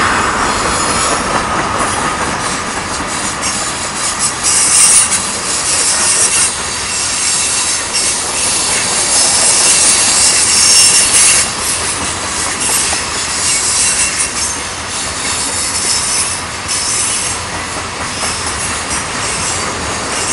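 Freight train's tank cars and covered hoppers rolling past on the rails: a steady rumble and rattle of wheels on track, with high-pitched wheel squeal swelling and fading, loudest around the middle.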